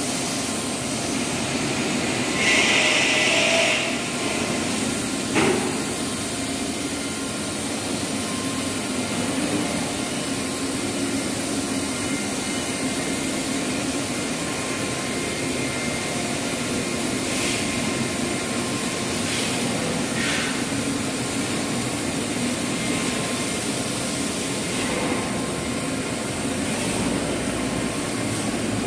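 Sheet metal uncoiler and straightening machine running, a steady machine noise as the steel strip feeds through the rollers. A loud hiss lasting about a second comes about two and a half seconds in, and a sharp click follows a couple of seconds later.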